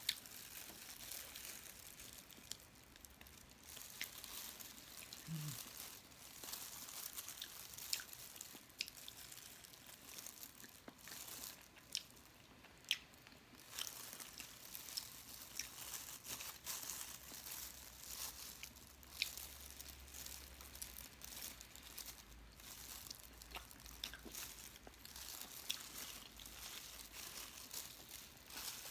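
Faint chewing and eating of adobo squid, heard as scattered small clicks and soft mouth noises.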